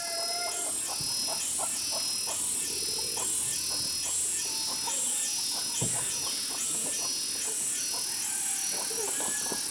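Outdoor insect chorus, a high buzzing that swells and fades a little more than once a second, with short scattered chirps and peeps.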